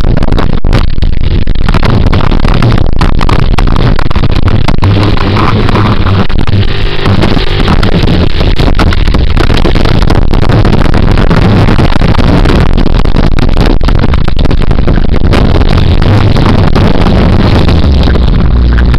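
Small off-road vehicle engine running continuously as it moves along a trail, loud and distorted on the camera's microphone.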